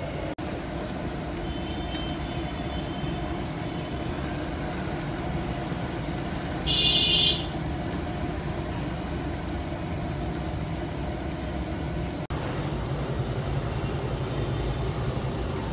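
Steady street traffic noise with a low engine rumble, and a short, loud, high-pitched horn note about seven seconds in.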